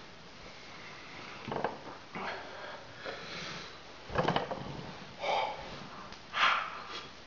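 A man breathing hard in about six sharp puffs and sniffs, blowing out through his mouth from the burn of a red habanero chilli in his mouth.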